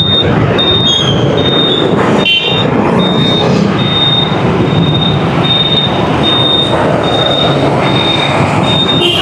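Heavy city traffic heard on the move: a loud, steady mix of engine and road noise. A short high beep repeats about once or twice a second throughout.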